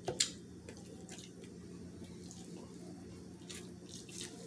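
Close-up eating sounds: scattered wet lip smacks and chewing clicks as barbecue ribs and fried chicken are eaten, the sharpest just after the start. A faint steady hum lies under them.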